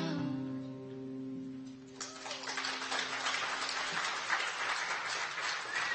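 Final strummed chord of an acoustic guitar ringing out and fading, then audience applause breaking out about two seconds in and continuing.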